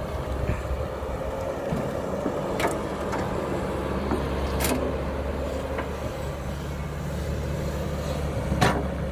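Cat 312B excavator's diesel engine running steadily under working load as the machine swings and digs, with a few brief sharp knocks.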